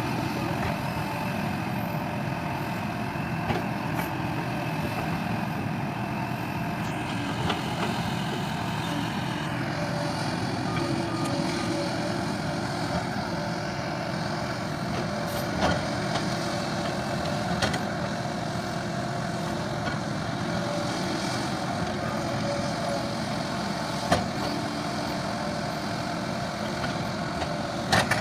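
Excavator's diesel engine running steadily while working, with a few short, sharp knocks scattered through.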